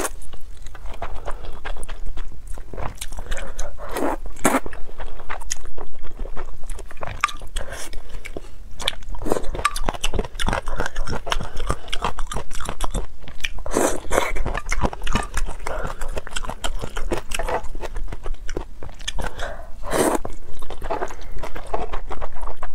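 Close-miked eating of luosifen rice noodles in spicy broth: wet slurping of the noodles and chewing with mouth smacks, with a few louder slurps along the way.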